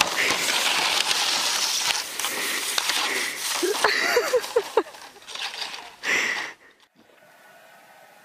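Plastic sled sliding over snow with a steady rushing hiss and wind on the microphone, while people's voices call out briefly about four seconds in. Near the end it cuts off suddenly to faint indoor room tone.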